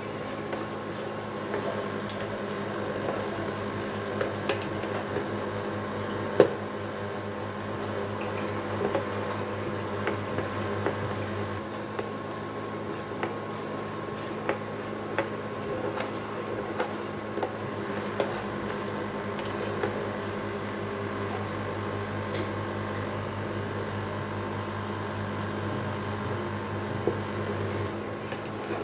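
A spoon stirring and scraping in a pot, with frequent small clinks and one sharper knock about six seconds in, over a steady low hum.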